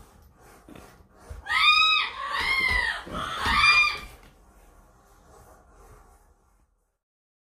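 A bully-breed dog gives three high-pitched whining squeals in quick succession, each rising and then falling in pitch, over light knocks and scuffles of paws.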